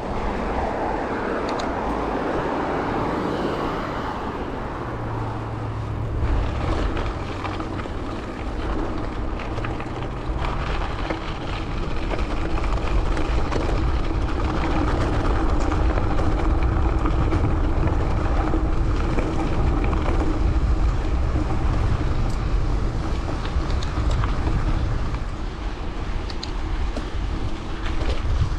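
Steady wind rush over an action-camera microphone and the rolling noise of a gravel bike's tyres while riding, getting somewhat louder about twelve seconds in.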